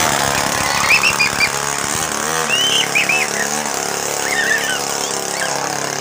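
Small grass-cutter (brush-cutter) engine on a homemade bicycle-frame minibike, running steadily, then its note drops and wavers about two seconds in as the bike rides off.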